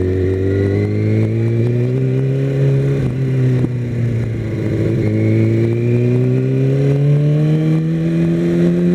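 Kawasaki Ninja ZX6R's inline-four engine pulling under acceleration, its pitch climbing steadily. About three seconds in it breaks off briefly and resumes a little lower, an upshift, then climbs again.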